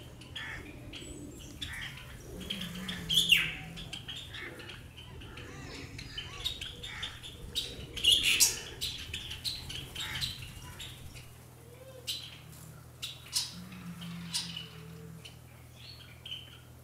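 Birds calling: a series of short squawks and chirps, the loudest about three and eight seconds in.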